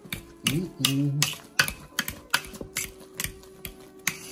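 Spatula knocking and scraping against a stainless steel pot as mashed potatoes are stirred: irregular sharp clicks, several a second.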